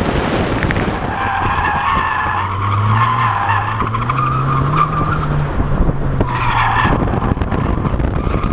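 Ford Fiesta ST driven hard: the tyres squeal for several seconds while the engine's note rises, over wind and road noise.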